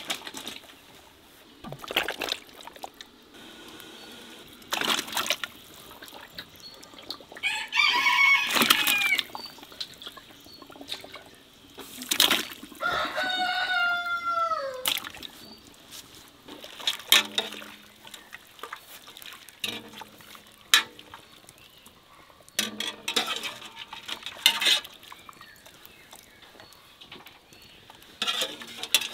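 A rooster crows twice, about eight and thirteen seconds in, the second crow trailing down in pitch at the end. Between and around the crows, hot water splashes and sloshes in a large pot as quails are dipped in it.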